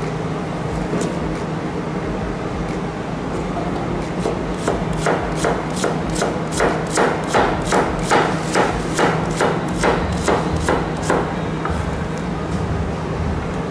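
Kitchen knife slicing an onion on a plastic cutting board: a few light taps, then a steady run of crisp knife strokes, about two or three a second, for several seconds from about four and a half seconds in, over a steady low hum.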